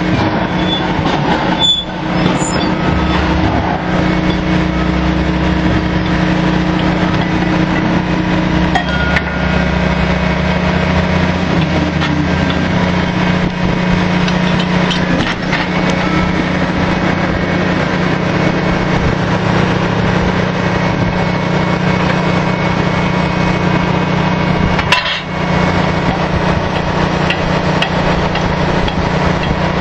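Drilling-rig floor machinery running steadily during casing running: a loud, constant engine and hydraulic hum with a steady low tone, and a few faint knocks of steel.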